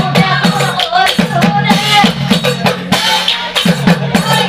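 Live Nagara Naam folk-devotional music: a woman's voice singing in sliding, ornamented lines over steady, repeated drum strokes and rattling percussion.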